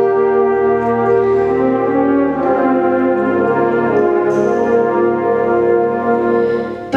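Concert band playing long held chords led by brass: trombones, trumpets and French horns, with the chord changing about two and a half seconds in.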